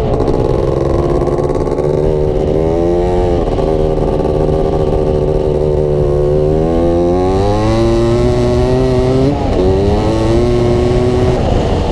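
Off-road vehicle engine running close up under throttle, its pitch climbing and falling with throttle and gear changes, with a brief drop a little past nine seconds.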